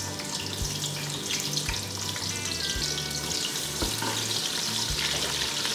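Sliced onions frying in hot sunflower oil in a steel pot, a steady sizzle, as a wooden spoon stirs them. The oil is hot and the onions are freshly added, starting to sauté.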